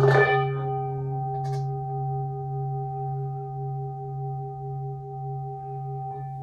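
Large metal singing bowl struck once with a wooden mallet right at the start, then ringing on with a low hum and several steady higher tones that slowly fade.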